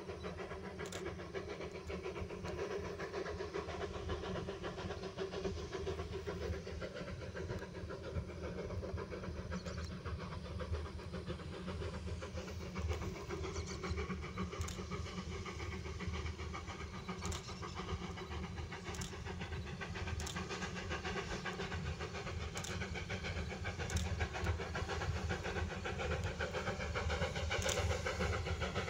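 Distant steam locomotive hauling a train, getting louder near the end as it approaches, over a steady low rumble.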